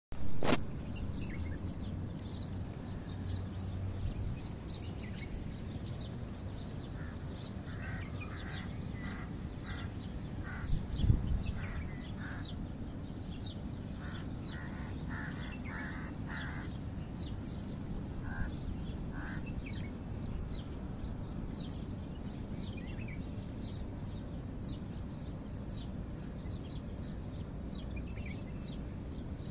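Birds calling over a steady low background noise: short high chirps throughout, with a few groups of harsher, lower calls. A loud click at the very start and a single thump near the middle.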